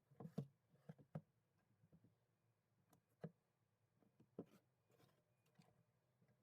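Faint, scattered light clicks and taps, a few at a time with near silence between them, the sharpest about a third of a second in and again just after 3 seconds.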